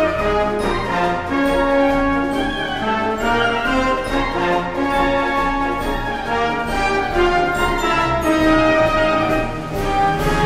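Wind band playing a march, with brass and woodwinds over a steady percussion beat.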